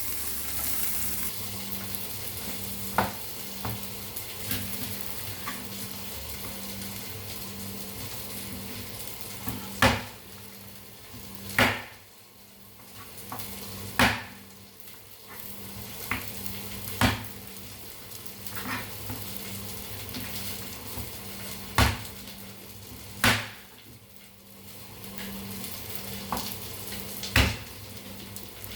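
Food sizzling as it fries in a pan, a steady hiss, while it is stirred with a utensil that knocks sharply against the pan about a dozen times.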